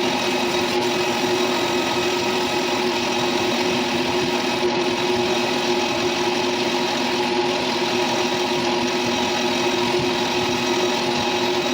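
Machine tool running steadily while machining a metal belt pulley, a constant hum with a steady whine above it.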